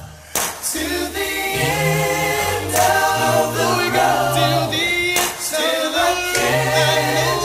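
Music: a song sung by several layered voices over low sustained bass notes, in an a cappella style.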